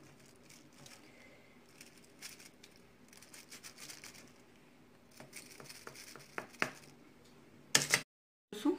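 Knife cutting through soft bread pudding and scraping over the aluminium foil beneath it: faint scratching and light clicks, getting busier toward the end, with a louder crinkling scrape just before the sound cuts out for a moment.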